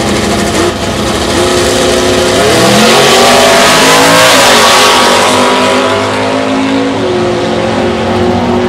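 Two drag-racing cars launching off the starting line and accelerating hard down the strip, their engines rising in pitch as they pull away, loudest about three to five seconds in.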